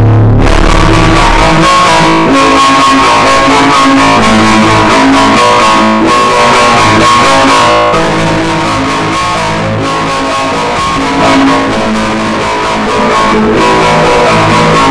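Very loud guitar-driven rock music that bursts in suddenly at full volume and stays loud throughout.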